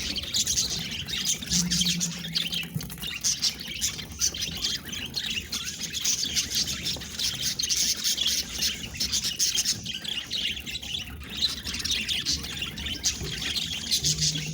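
Budgerigars chattering and squawking without pause, a dense run of short high chirps.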